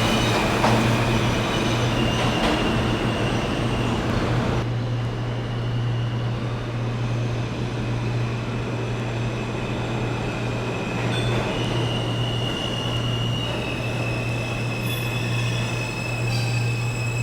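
R160 New York City subway train running, a steady low hum under thin, high-pitched wheel squeals that come and go; the high hiss thins suddenly about five seconds in.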